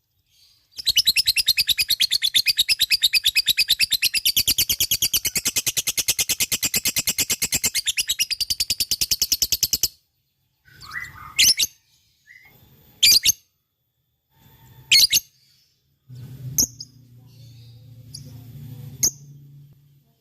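Lovebird in full 'ngekek': a long, fast, even string of sharp high chattering notes lasting about nine seconds. It then breaks off into a few separate loud chirps, with a low hum underneath near the end.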